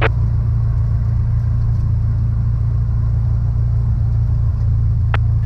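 Cessna 172's piston engine running at low power after landing, a steady low drone, with brief clicks at the start and about five seconds in.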